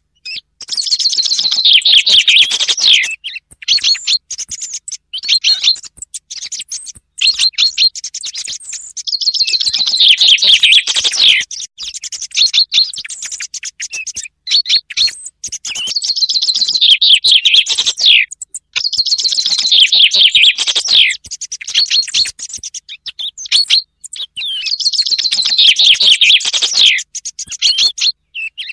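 Common chaffinch songs, each a rapid trill of about two to three seconds that falls in pitch, heard five times. Shorter, fainter song thrush notes come between them. It is a bird-song recording mixed for use as a hunting lure.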